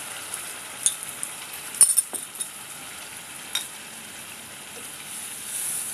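Chicken in spiced masala sizzling steadily in a pot on a gas stove as milk goes in. A few sharp clinks of a utensil or bowl against the pot, the loudest about two seconds in.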